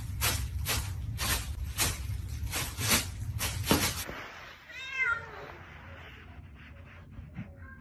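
A plastic bag crinkles under a cat's paws in sharp, regular crackles, about three a second. After about four seconds a cat meows once.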